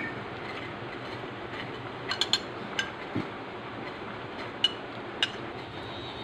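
A steel spoon clinking against a steel bowl, about six short ringing clinks in two clusters, over a steady background noise.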